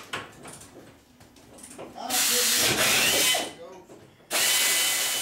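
Air ratchet running in two bursts, about two seconds in and again near the end: a loud hiss of exhaust air with a thin steady whine, spinning out body bolts.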